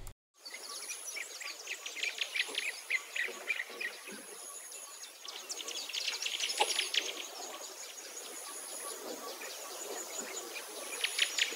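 Outdoor nature ambience: birds chirping in quick runs of short high notes, with a thin, steady, very high insect-like trill that stops and starts every couple of seconds behind them.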